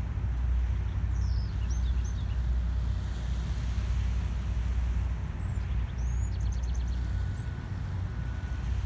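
Tugboat's diesel engine running steadily with a low rumble. Birds chirp a couple of times over it, once with a quick trill just after the middle.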